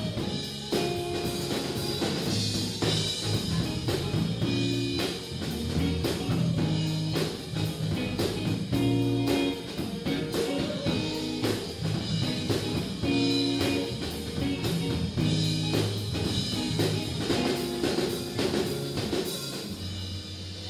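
Live rock band playing: a drum kit keeping a steady beat under bass guitar and electric guitar.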